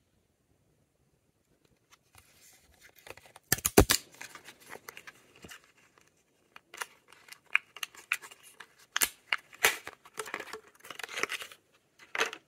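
Lip balm packaging being unwrapped by hand: a string of crinkles and rips with several sharp clicks and snaps, starting about two seconds in.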